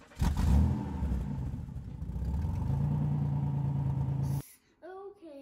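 A car engine starting up and running, cutting off abruptly about four seconds in. Near the end comes a short sound whose pitch slides downward.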